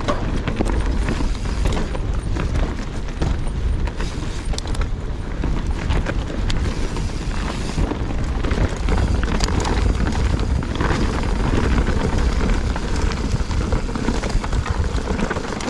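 Mountain bike descending a rough dirt trail: wind buffets the microphone with a heavy rumble while the bike rattles and knocks over bumps.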